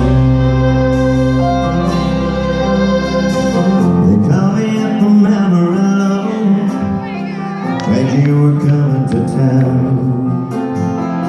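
Live country band playing a song's intro, led by acoustic guitar, recorded from the audience in a concert hall.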